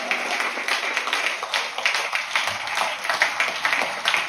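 A small audience applauding, a dense, steady clapping.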